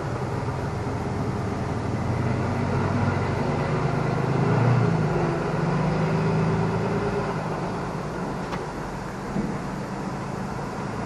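Low engine rumble of road traffic, swelling as a vehicle passes about halfway through, then easing off; a faint single click comes near the end.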